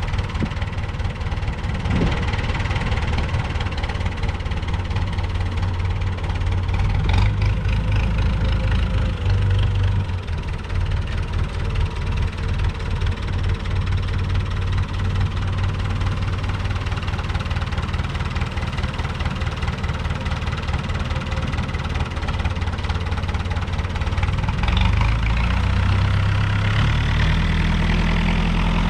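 Long 560 DT tractor's diesel engine running at a steady idle, its note changing and rising slightly about 25 seconds in.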